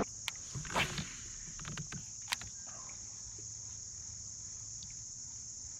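Insects chirring in a steady high-pitched drone, with a few light clicks and knocks, the sharpest a little over two seconds in.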